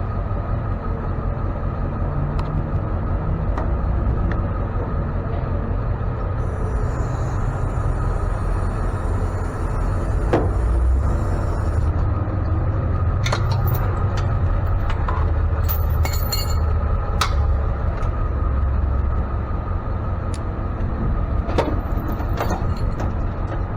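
Ford F-550 tow truck heard from inside the cab while driving: a steady low engine and road rumble with occasional small rattles and knocks.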